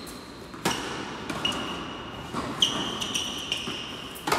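Tennis rally on an indoor hard court: sharp racket-on-ball strikes and ball bounces, each with a short echo, with tennis shoes squeaking on the court surface between them. The serve is struck about half a second in, and a slice backhand near the end.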